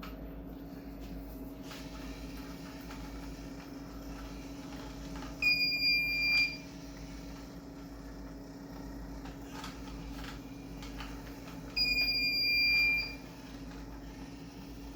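Piezo buzzer on an Arduino remote-control car sounding two steady high beeps, each about a second long and about six seconds apart: the ultrasonic sensor's warning that the car is within 12 inches of an object. A steady low hum runs underneath.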